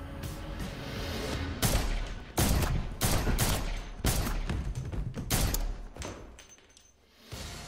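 Handgun fired in a rapid series of about a dozen shots, starting about a second and a half in, some shots coming in quick pairs. The shots die away about six seconds in.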